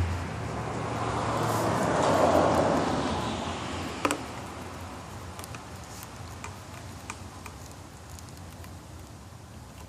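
A passing car's noise swells and fades over the first few seconds. A single sharp click comes about four seconds in, followed by faint scattered ticks.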